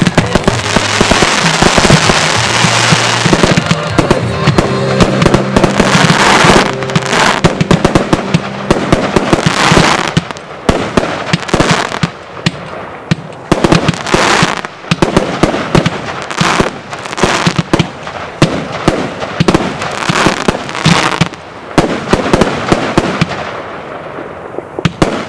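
Fireworks going off: a dense, continuous crackle with rapid bangs for the first ten seconds or so, then thinning out into separate sharp bangs and crackling bursts a second or so apart.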